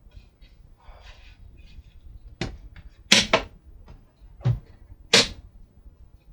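A 1962 Westinghouse record player's case being opened: five sharp clicks and knocks, two of them in quick succession about three seconds in, over light handling rustle.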